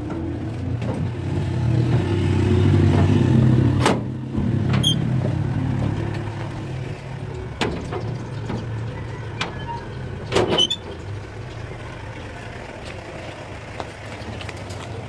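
Street traffic: a motor vehicle's engine rumbles past close by, loudest about two to four seconds in and then fading, with a few sharp clicks along the way.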